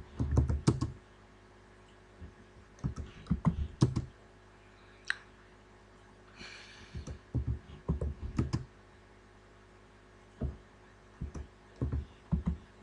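Computer keyboard keys being typed and clicked in short bursts of a few keystrokes, with pauses between, as a value is entered into a field.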